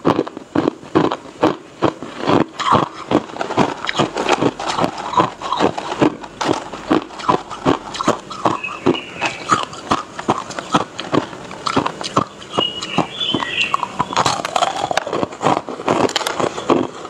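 Hard ice chunks crunched between the teeth, close to a clip-on microphone: rapid, irregular crunches, about three a second.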